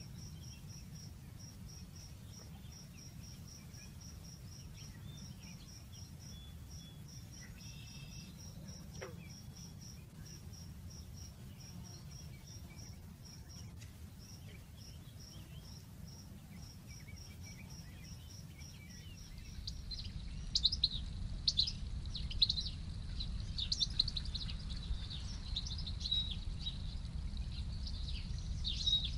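Outdoor nature ambience: a high, insect-like chirp repeats evenly, about four times a second, over a low rumble. About twenty seconds in, the sound switches abruptly to louder songbird chirps and twittering.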